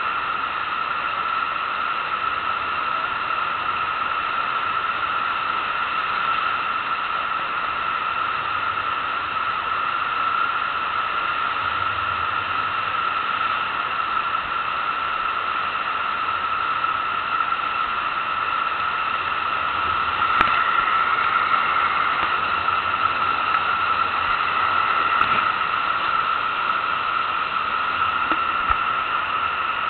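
Steady rush of water pumped up the slope of a FlowRider standing-wave machine, getting a little louder about twenty seconds in.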